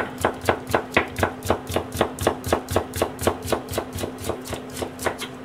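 Kitchen knife chopping a carrot on a plastic cutting board, an even run of quick knife strikes about four or five a second that stops shortly before the end.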